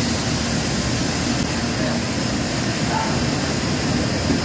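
Steady roar of a commercial Chinese kitchen's wok station: the gas wok burner and the overhead extraction hood running at full blast.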